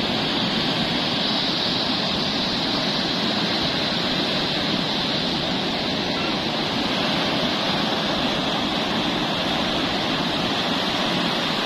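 Ocean surf breaking and washing up a sandy beach in a steady, unbroken rush of white water.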